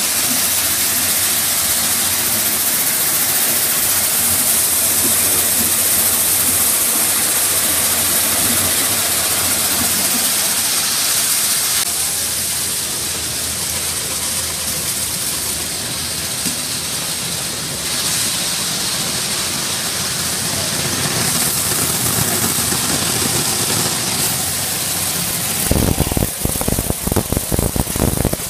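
Bean color-sorting machinery running: a loud, steady hiss with a low hum underneath. About 26 seconds in, irregular low thumps and rustling of handling noise join it.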